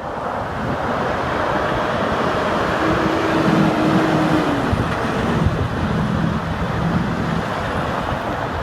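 Steady interstate traffic noise of trucks and cars passing at highway speed, with a faint low engine drone from a passing vehicle swelling and fading near the middle.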